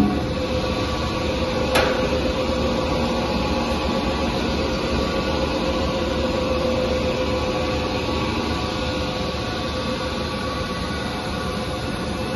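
Fish feed plant machinery running with a steady drone and hum, and a single sharp knock about two seconds in.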